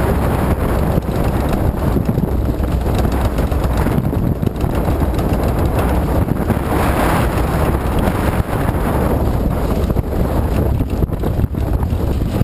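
Vintage speedway midget car's engine running, heard from an onboard camera on the car, with wind buffeting the microphone.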